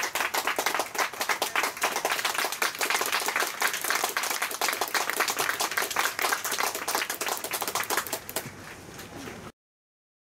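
Spectators clapping close by: a dense run of handclaps that thins out and fades about eight seconds in, then cuts off to dead silence near the end.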